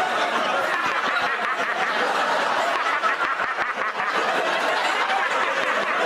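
Studio audience laughing steadily.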